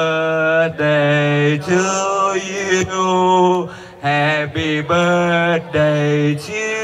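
Singing: a man's voice holding long, steady notes one after another, each about a second long with short breaks between.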